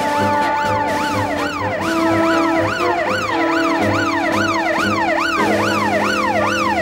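Police car siren yelping, its pitch sweeping quickly up and down about two to three times a second, over background music with held notes and a steady low beat.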